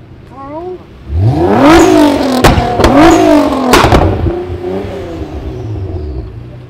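Nissan GT-R R35's twin-turbo V6 revved hard: after a short blip, the engine note climbs and falls twice, with loud sharp bangs from the exhaust each time the revs drop, then settles back down.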